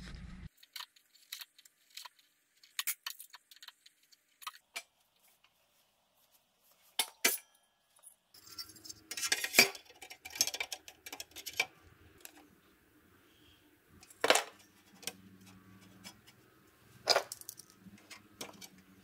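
Scattered light metallic clicks and clinks of small metal parts and hand tools being handled, with a few sharper knocks that ring briefly.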